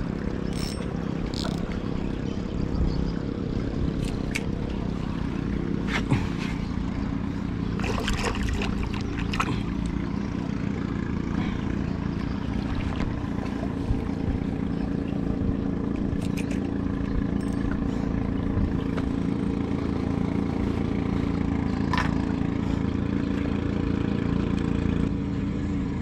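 An engine running steadily: a low, even drone that holds one pitch throughout. A few light clicks and taps sound between about 6 and 10 seconds in.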